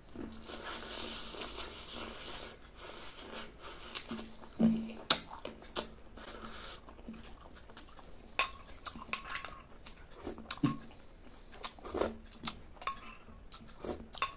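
Close-miked eating sounds of someone chewing and sucking fruit: irregular wet smacks and sharp lip and tongue clicks as fingers are licked, with a soft sucking hiss in the first few seconds.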